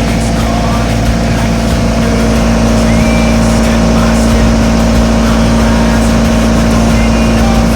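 Fermont MEP-804A 15 kW military diesel generator running at a steady speed, a loud, even engine drone that does not change.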